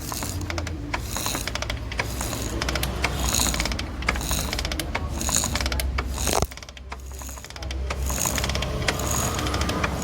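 Kick-start of a bare Pulsar 150 engine being pumped about once a second, the kick gear ratcheting and the crankshaft turning over with metallic clicks, drawing the new timing chain through; the strokes pause briefly a little past halfway.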